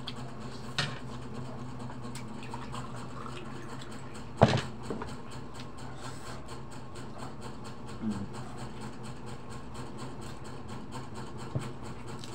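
A steady low hum under eating at a table, with a few sharp knocks. The loudest knock comes about four and a half seconds in, and smaller ones near the start, after eight seconds and near the end.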